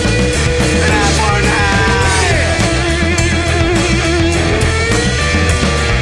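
Loud rock music from a full band, with a lead line that bends in pitch between about one and two and a half seconds in, then a long held note.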